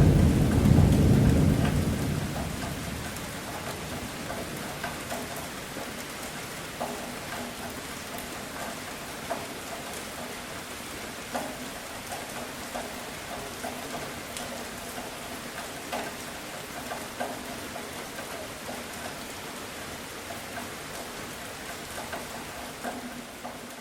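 Thunder rumbling loudly at the start and fading away over the first few seconds, followed by steady rain with scattered individual drops ticking.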